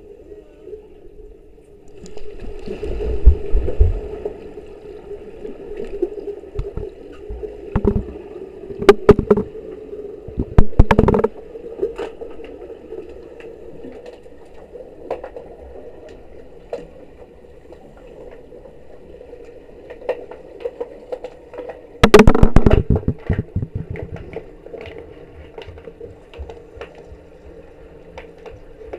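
Pool water heard underwater through an action camera's waterproof housing during an underwater hockey game: a steady low hum with scattered clicks and knocks, and loud bursts of rushing noise about three seconds in, again around eight to eleven seconds, and once more a little past twenty-two seconds.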